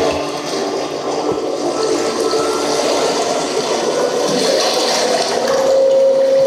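Steady rushing, water-like noise with a faint held tone underneath, swelling a little louder after the middle.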